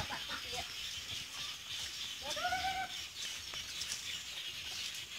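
A dog whines once, a single rising-then-falling call about two seconds in.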